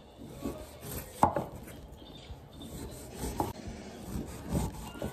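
Cleaver-style kitchen knife cutting through a lime and knocking on a wooden cutting board: a few separate knocks, the loudest a little over a second in.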